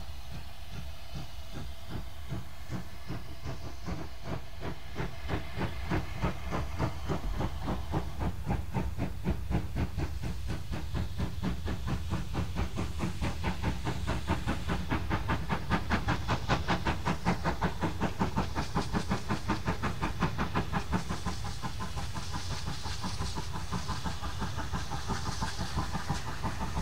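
Steam locomotive working a train past, its chuffing exhaust beats coming in a quick, steady rhythm. The beats grow louder as it approaches, peak a little past the middle, then ease off as it goes by.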